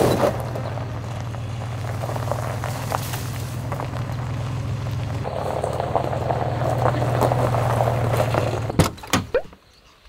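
Steady low rumble with an even hiss over it, like a moving vehicle, ending in a few sharp knocks about nine seconds in.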